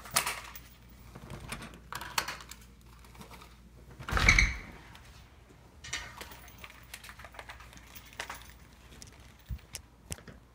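Front door being unlocked and opened by hand: a series of clicks and knocks from the deadbolt, latch and knob, with the loudest knock, carrying a short ring, about four seconds in.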